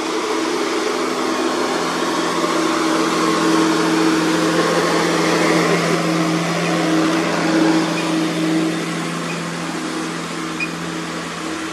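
A Volvo FM 420 truck's diesel engine runs steadily, with tyre and road noise, as the truck hauls a heavy articulated-dump-truck load past at close range. It swells to its loudest in the middle and eases off near the end.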